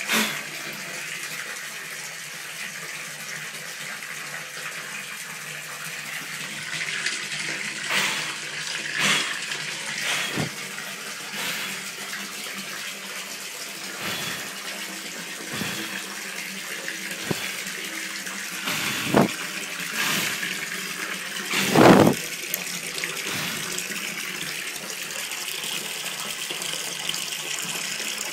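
Bathtub tap running, a steady rush of water pouring and splashing into the tub. A handful of brief louder noises break through it, the loudest about three-quarters of the way in.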